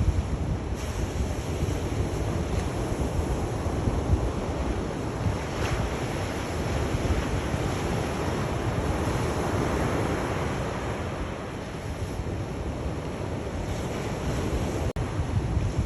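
Sea waves washing on the shore: a continuous rushing surf with a heavy low rumble, swelling to its loudest a little past the middle and then easing off.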